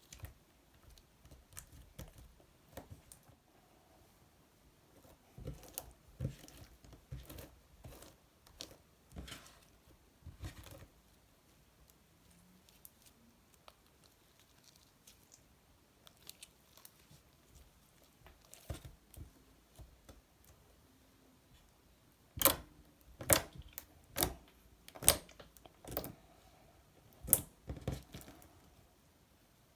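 Slime being squished and folded by hand: sticky clicks and small air-bubble pops at an uneven pace, with a run of louder, sharper pops in the last third.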